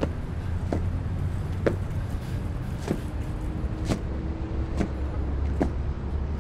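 A vehicle engine idling with a steady low rumble, with faint clicks about once a second.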